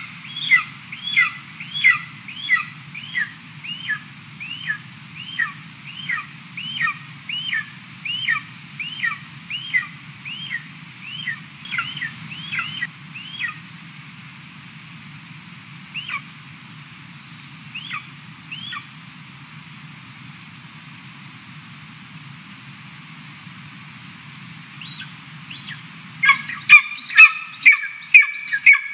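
Golden eagle calling at the nest: a run of short, high, down-slurred calls, about two or three a second. They thin out to a few scattered calls around the middle, then start again louder and faster near the end.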